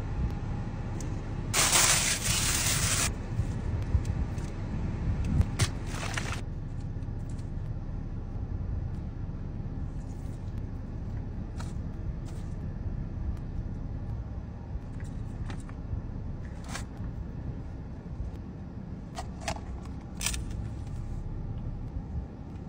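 Steady low rumble inside a car's cabin, under short scrapes and clicks of a plastic spoon and hands in takeaway food containers. A louder hissing rustle starts about a second and a half in and lasts about a second and a half.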